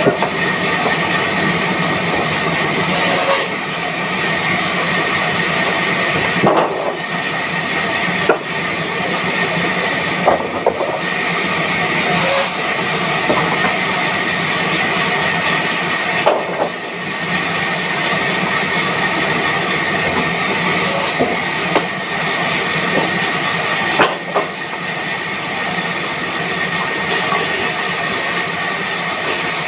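Band sawmill running and cutting wood: a loud, steady machine noise with a constant high whine and a few brief knocks.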